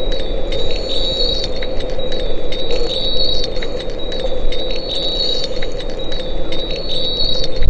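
A steady buzzing hum with thin high tones held over it and faint ticks recurring throughout.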